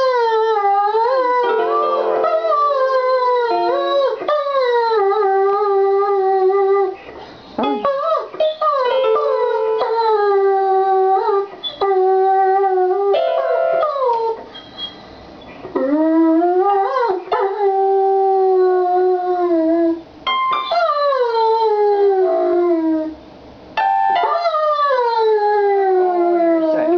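A German Shepherd howls along with an electronic keyboard: about five long, drawn-out howls, each sliding down in pitch, with short breaks between them. A few steady keyboard notes sound now and then where the dog's nose presses the keys.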